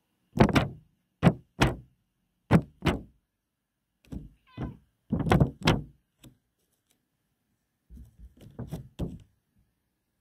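Uneven run of a dozen or so short, dull thumps and rubbing knocks right at the microphone, coming in clusters with gaps of about a second between them.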